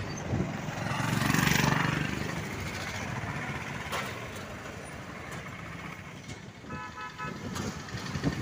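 Road traffic heard from a moving vehicle: a steady mix of engines and tyre noise that swells as something passes about a second in. A little before seven seconds a vehicle horn gives a quick run of short beeps.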